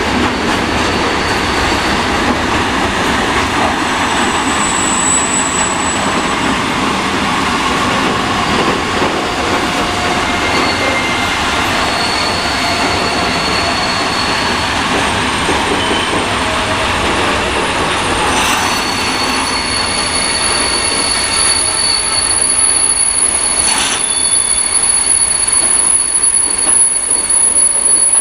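Freight train of tank-container wagons rolling past on the rails, a steady rumble of wheels on track. High-pitched wheel squeal sets in about halfway through and holds, and the noise grows a little louder near the end.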